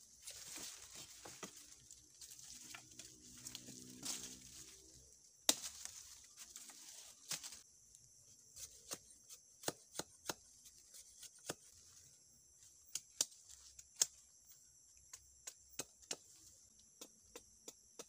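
Hands handling sticks in dry leaf litter: rustling and crackling for the first several seconds, then a run of sharp, irregular clicks and snaps. A steady high-pitched insect drone runs underneath.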